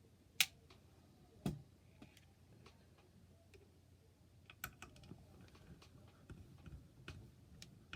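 Light, irregular clicks and ticks of small metal parts being handled: a screwdriver and the long screws being worked out of a graphics card's cooler. Two sharper clicks come about half a second and a second and a half in, then fainter scattered ticks from about halfway.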